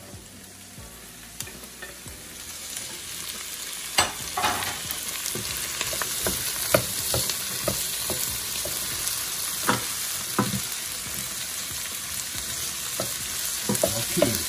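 Food sautéing in a hot pot: garlic and thyme, with the sizzle swelling about two seconds in as peppers, onions and tomatoes are added. A spoon stirs and knocks against the pot several times.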